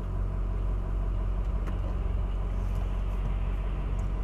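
Vehicle engine idling, heard from inside the cab as a steady low rumble.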